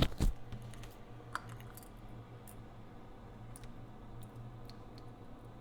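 Sharp clicks and taps of small parts and tools being handled on a workbench, two or three loud ones right at the start, then a few faint ticks over a steady low hum.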